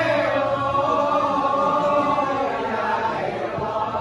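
Javanese gamelan music with a long, wavering sung vocal line over it; a low gong tone struck just before rings on and dies away about a second and a half in.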